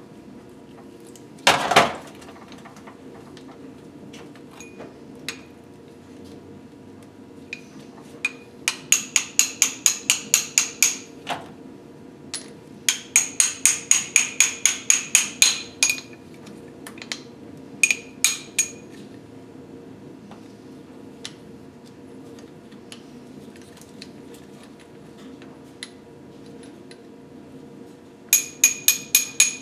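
Runs of quick, light hammer taps on metal engine parts, about four a second with a bright ringing tone, after one heavier knock near the start.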